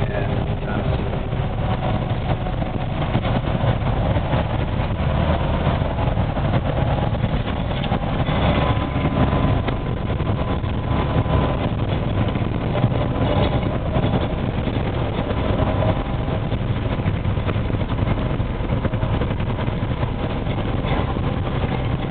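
Snowmobile trail groomer's engine running steadily, with a faint steady whine above it.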